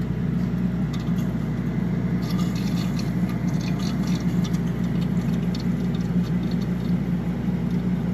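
Cooling water rushing and gurgling through the Aeon Mira 9's glass Reci CO2 laser tube as it fills on the machine's first startup, which is normal. A steady low hum runs underneath, with scattered crackling and pattering heard most in the middle.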